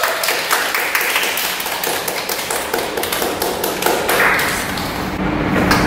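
A small group of people clapping, a patter of scattered hand claps that thins out after about four seconds.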